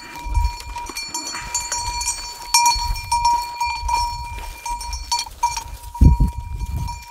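Small bell on a sheep's collar clanking over and over as the sheep jostle around, with irregular low thumps, the loudest about six seconds in.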